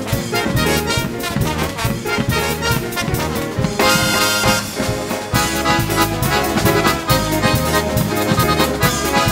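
Live brass band playing an upbeat instrumental passage: trumpets, trombones and a sousaphone over drums and a backing band, with the brass holding a long bright chord about four seconds in.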